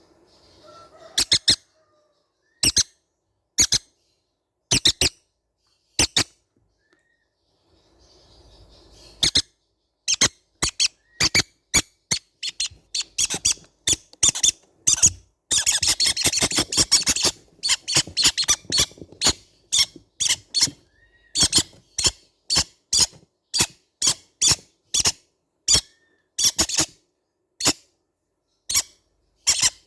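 Baby green-cheeked conures giving short, high-pitched squeaking calls. The calls are spaced a second or two apart at first, then come rapidly from about ten seconds in, bunching into a dense overlapping burst around the middle before settling back to a few calls a second.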